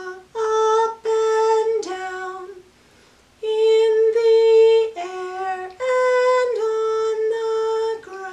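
A woman singing a simple children's song solo and unaccompanied, her voice stepping back and forth between a higher and a lower note, with a short pause between the two lines about three seconds in.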